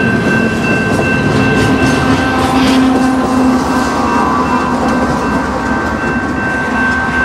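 The end of a double-stack freight train rolls past: steady rumble and clatter of steel wheels on rail, with the engine of the trailing distributed-power locomotive, a CP AC4400CW, going by a few seconds in. A grade-crossing bell rings steadily throughout.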